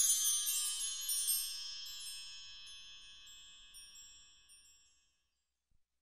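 High, shimmering chimes ringing out and slowly fading, dying away to silence about five seconds in.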